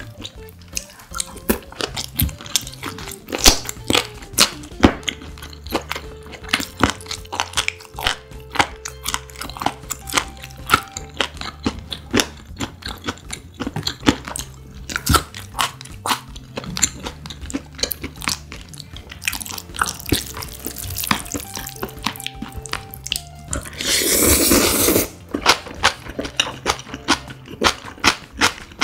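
Close-miked eating: repeated sharp crunches and chewing of noodles with crisp young radish (yeolmu) kimchi. About 24 seconds in comes a loud slurp of noodles lasting about a second and a half.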